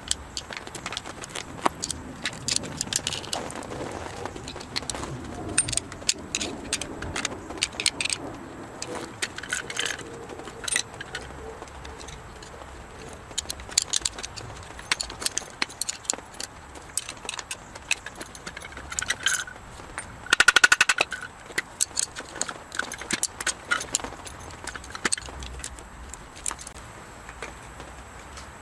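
Metal tools and alternator parts clinking and knocking during hands-on disassembly, in scattered sharp clicks. About twenty seconds in comes one brief, loud rapid rattle of clicks.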